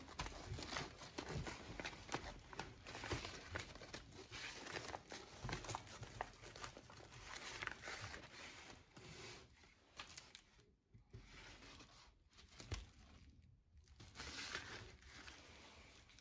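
Brown protective wrapping paper crinkling and tearing as it is peeled off a new-old-stock camshaft by hand, irregular rustling with small crackles that dies down briefly twice in the second half.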